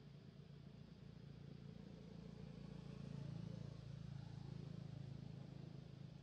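Faint, steady low hum of a distant engine, swelling a little about halfway through and easing near the end.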